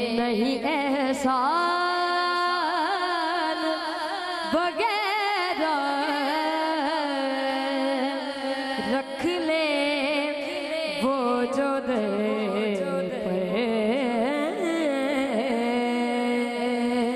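A boy singing a naat (Urdu devotional poem) into a microphone, drawing out long held notes with wavering, gliding ornaments between them.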